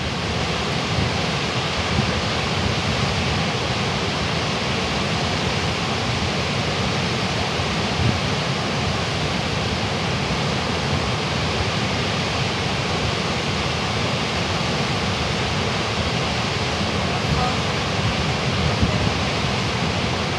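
Steady roar of Goðafoss, a large waterfall, as an even rushing noise, with a low rumble of wind buffeting the microphone underneath.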